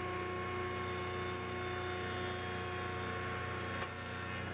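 Grizzly G0858 8-inch jointer with a helical cutterhead, running free with no wood in the cut: a steady hum with several fixed tones.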